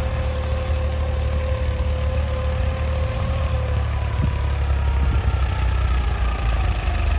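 35 hp New Holland 3032 tractor's three-cylinder diesel engine running steadily under load, pulling a nine-tine cultivator set fully down into the soil. The whine in the engine note drops slightly in pitch about halfway through.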